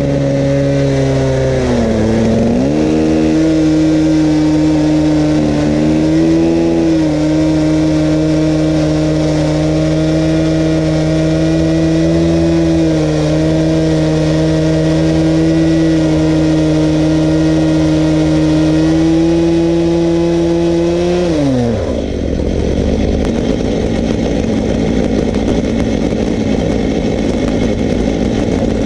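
Two Stihl MS880 two-stroke chainsaws at full throttle, driving one long chain through a sycamore log in a double-ended chainsaw mill. The engine note climbs as they open up, then holds steady under load with small dips. About 22 seconds in the steady note drops away, leaving a rougher, noisier engine sound.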